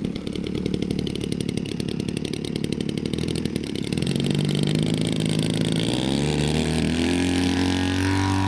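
Desert Aircraft DA-120 twin-cylinder two-stroke gas engine of a Flex Innovations Mamba 120 RC airplane running in flight. It is steady at first, then rises in pitch and gets louder from about halfway through.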